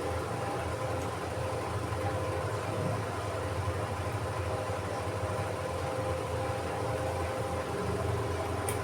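Steady low machine hum with faint steady higher tones, unchanging throughout.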